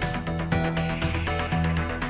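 Background music with a steady beat: held notes over a bass line.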